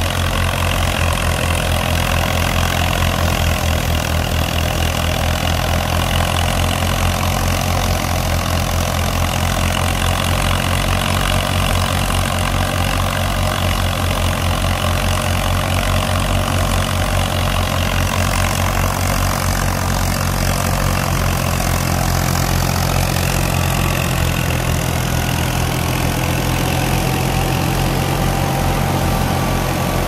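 Ghazi tractor's diesel engine running steadily under load, driving a wheat thresher through its PTO, with the thresher's drum and belts turning.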